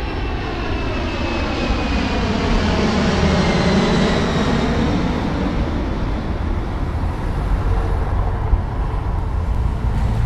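A fixed-wing aeroplane passing overhead. Its engine rumble swells to a peak about four seconds in and then eases, with a whine that slowly falls in pitch as it goes by.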